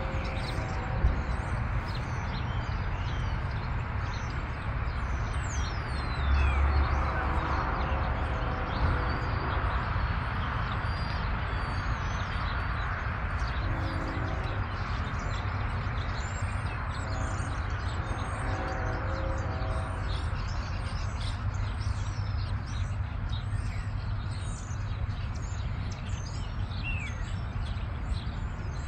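Distant diesel locomotive horn sounding a long, long, short, long sequence, over a steady low rumble, while small birds chirp throughout.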